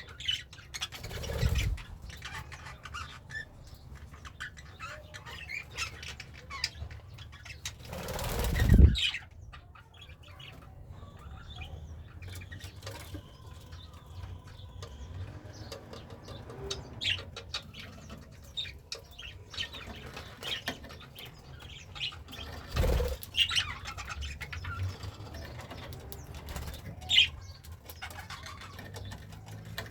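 Pet budgerigar chirping in short, scattered notes, with bursts of wing flapping. The loudest flapping comes about eight seconds in, with shorter bursts near the start and around twenty-three seconds.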